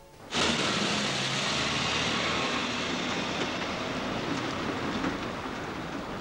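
A vehicle passing close by: a loud, steady rushing noise with a low engine hum. It starts abruptly about a third of a second in and eases off slightly towards the end.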